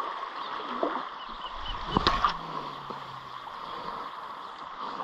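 Shallow water lapping and splashing against a rock shelf, with a short, sudden splash or knock about two seconds in.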